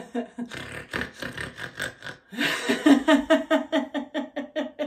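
A woman's mock snoring: noisy snorting breaths for about the first half, then breaking into rhythmic deliberate laughter, about five 'ha's a second. It is a staged 'snoring laughter' exercise.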